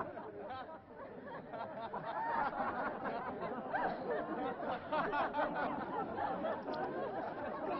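Many voices at once from a group of people, overlapping chatter and laughter-like calls with no clear words, denser and louder from about two seconds in.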